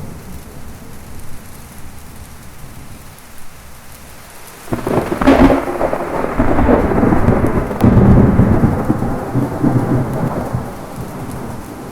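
Thunderstorm with steady heavy rain. A loud thunderclap breaks in suddenly about halfway through, surges again a few seconds later, then rolls off into a rumble.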